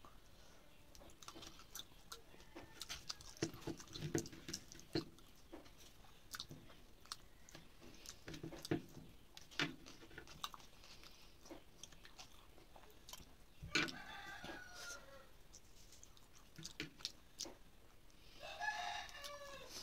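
Close-up eating sounds of rice and fish eaten by hand: chewing, lip smacks and soft clicks. A rooster crows twice in the background, about two-thirds of the way in and again near the end.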